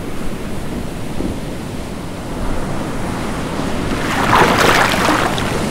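Ocean waves and surf washing steadily, with a louder rush of breaking water about four seconds in.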